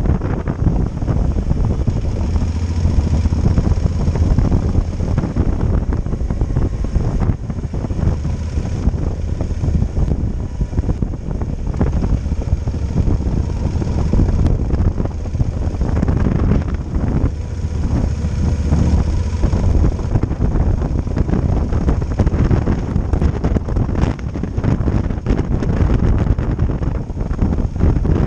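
Wind buffeting a motorcycle-mounted camera microphone while riding, over the low drone of a Yamaha Super Ténéré XT1200ES's parallel-twin engine.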